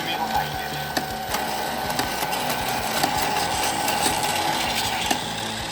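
A battery-powered toy train running on plastic track: a steady motor whirr with small clicks from the wheels and track.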